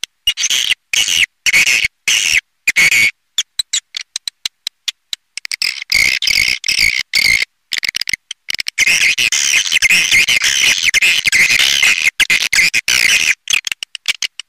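Swiftlet call-sound lure (suara panggil), a recording of swiftlets' rapid chittering and clicking calls played to draw swiftlets into a nesting house. The calls are broken and patchy at first, then become a dense, continuous chatter from about nine seconds in.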